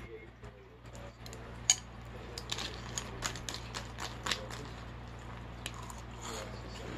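Spoon clinking and scraping in a glass bowl of cereal and milk, with crunching as the cereal is eaten: one sharp clink about two seconds in, then a quick run of clicks and crunches until about halfway, and a few more near the end.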